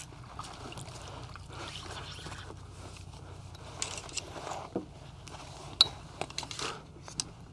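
Water sloshing against a kayak, with scattered clicks, knocks and scrapes as the rod and paddle are handled. The sharpest click comes about six seconds in.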